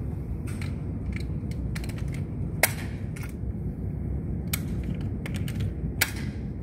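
A steady low rumble with scattered sharp clicks and two louder, ringing cracks, about two and a half and six seconds in.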